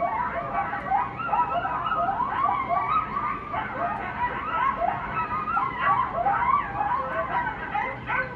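A group of coyotes yipping and howling together, many short calls sliding up and down in pitch and overlapping, played through a TV speaker.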